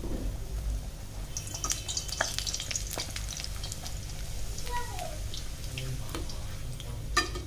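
Whole-wheat puri deep-frying in hot oil in a kadhai, the oil sizzling and crackling steadily while a perforated slotted spoon presses the puri down. A single sharp click comes near the end.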